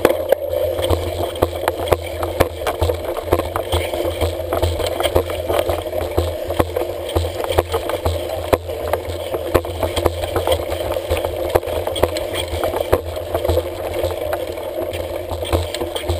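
Mountain bike riding over a bumpy dry dirt trail, heard from a camera mounted on the handlebars: the bike rattles steadily over a low rumble, with many small clicks and knocks from the bumps.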